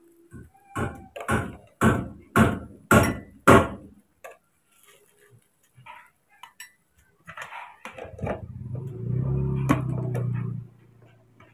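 A metal spoon clinking sharply against a drinking glass about seven times, roughly two a second, as powdered milk is spooned into it. Near the end a low steady hum sounds for about three seconds and then stops.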